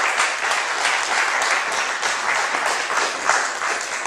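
Audience applauding, a dense steady clapping that starts to die away near the end.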